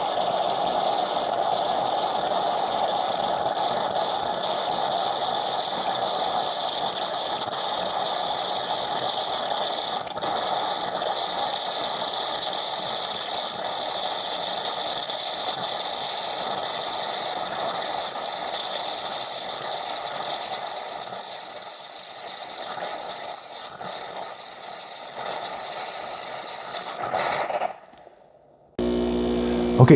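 Gourmia automatic espresso machine running its milk frother, a steady mechanical whir with a hiss as it dispenses frothed milk for a latte. It shuts off suddenly about two seconds before the end.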